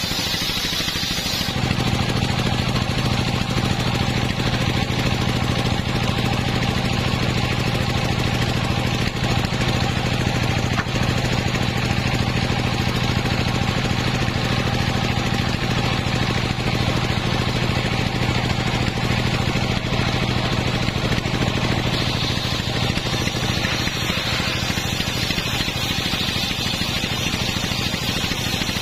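Home-built circular sawmill running steadily, its large blade ripping a coconut-palm log lengthwise into a beam: a constant low engine-driven hum with the hiss of the cut over it. The cutting hiss shifts near the start and again about two-thirds of the way through.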